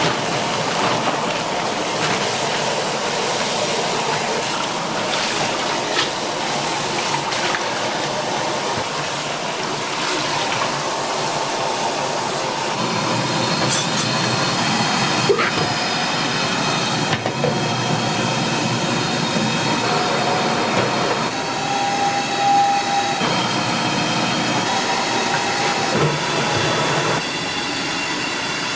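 Food sizzling steadily in a street-food kitchen, with occasional sharp clicks of utensils. From about halfway through, several high squealing tones sound over the sizzle.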